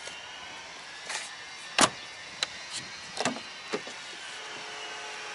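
Several short, sharp clicks and knocks, the loudest a little under two seconds in, as a Mercedes-Benz C-Class sedan's rear door is unlatched and swung open.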